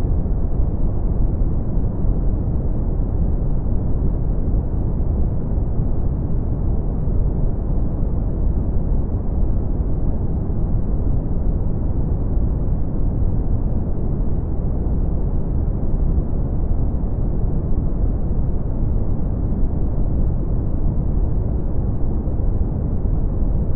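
Steady brown noise: a deep, even hiss with most of its weight in the low end, thinning out upward and with no treble at all, unchanging throughout.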